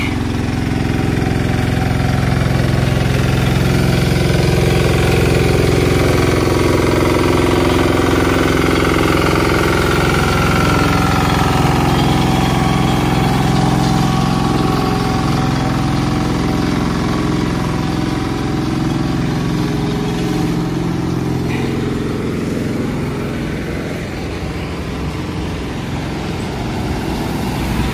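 Small walk-behind double-drum asphalt roller's engine running steadily, loudest in the first part and easing off toward the end.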